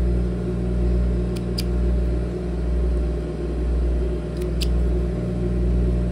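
Industrial sewing machine's clutch motor humming steadily while the machine stands idle, the hum swelling and fading about once a second. Two quick pairs of light clicks come from thread snips cutting off thread ends.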